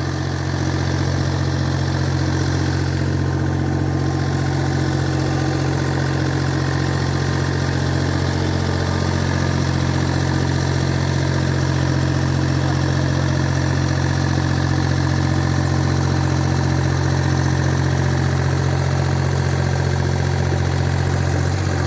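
Small backhoe's engine running steadily at an even speed, with a constant low hum.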